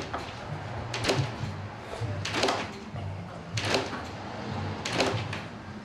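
Garage door test rig being cranked to push the door sideways, with a creaking clunk about every one and a quarter seconds as the door and its steel track take the load, over a low steady hum.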